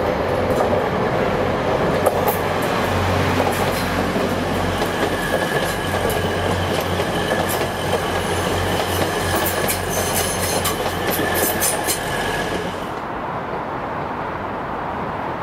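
A train running past on the rails, with repeated clicks of the wheels over rail joints and a thin steady squeal. The clicking and squeal cut off about thirteen seconds in, leaving a duller rumble.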